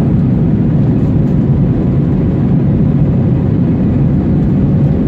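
Steady low rumble of an Airbus A321 in flight, its jet engines and airflow heard from inside the passenger cabin, with a faint steady hum running through it.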